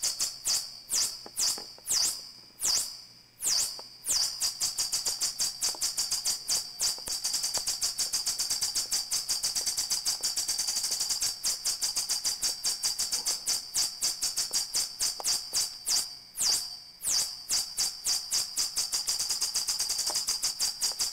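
MacBeth M5 analogue modular synthesizer playing a patch of short, high-pitched chirps that fall in pitch. For the first few seconds the chirps come singly, about two-thirds of a second apart. From about four seconds in they speed up into a fast, even pulse train of roughly five a second.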